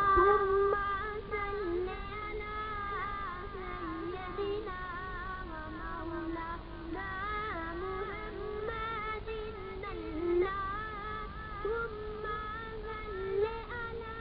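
A young boy singing solo into microphones, a single voice holding long notes that waver and bend.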